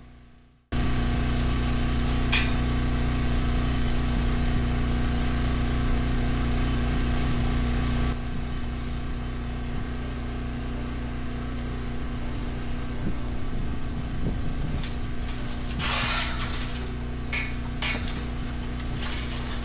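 An engine running steadily with an even low hum, easing slightly in level about eight seconds in. A few short metallic clanks and rattles come near the end.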